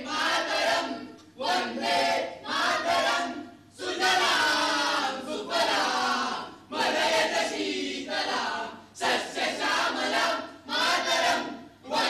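A chorus of voices chanting in short repeated phrases about once a second, with one longer unbroken phrase about four seconds in.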